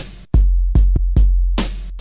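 Bass-heavy electronic music: a drum-machine beat striking about two and a half times a second over a deep, sustained bass.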